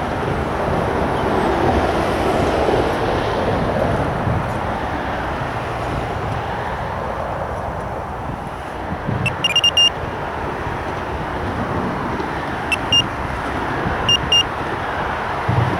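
Electronic carp bite alarm bleeping in short bursts, a quick run of about five bleeps about nine seconds in, then single and paired bleeps a few seconds later, over steady road traffic noise. The left-hand rod's alarm is set too sensitive, so it keeps going off without a proper run.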